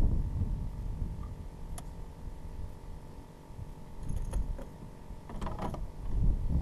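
Spinning fishing reel working, with light mechanical clicks and ticks over a low rumble.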